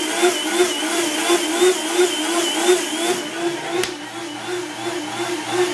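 Blendtec blender motor running as it blends a smoothie, its pitch wavering about three times a second. A knock comes near four seconds in, after which the blender sounds duller and quieter.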